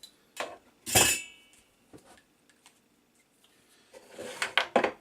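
Metal parts and tools clinking and knocking as they are handled and set down on a workbench. One loud clank with a short ring comes about a second in, and a quick run of clatter near the end.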